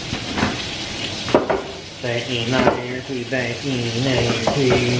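Burger patties sizzling on a stovetop griddle, with a few sharp utensil clicks in the first second or so. From about two seconds in, a man hums over the sizzle.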